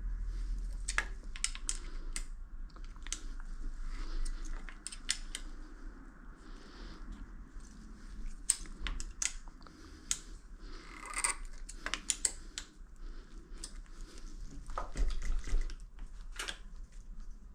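Scattered light clicks and taps of hand tools and metal parts being handled while a mountain bike is assembled, with some soft rustling between them.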